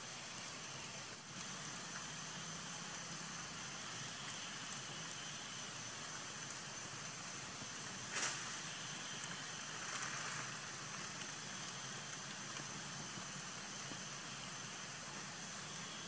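Steady outdoor background hiss with a faint high steady tone, broken by a short rustle about eight seconds in and a brief swell of noise about two seconds later.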